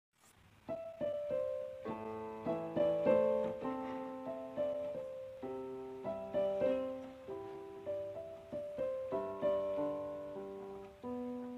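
Background piano music: notes and chords struck at a gentle pace, each fading away.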